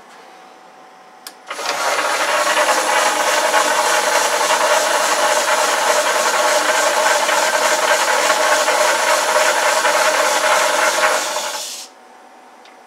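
Boxford AUD metal lathe switched on with a click about a second in, running loud and steady under power for about ten seconds with the threading bar in the backplate's bore, then switched off and running down quickly near the end.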